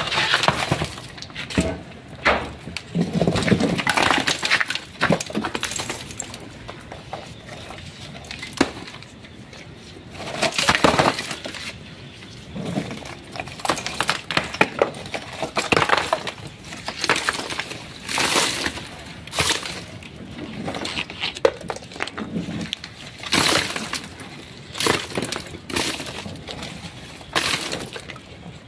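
Irregular sharp knocks, cracking and clinking of concrete or masonry being broken apart, with pieces chinking as they fall, while a cemetery niche tomb is broken open.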